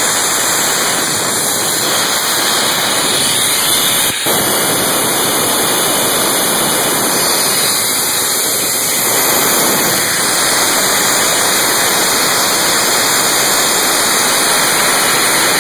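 Ingersoll Rand 175 cfm diesel air compressor running after startup, heard as a loud, steady rushing noise with no distinct engine beat, briefly dipping about four seconds in.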